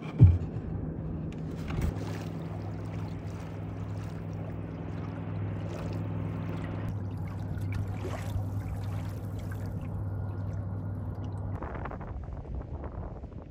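Lake water lapping and gurgling against a plastic kayak hull, with a steady low engine hum running underneath from about two seconds in until near the end. A single sharp knock right at the start is the loudest sound.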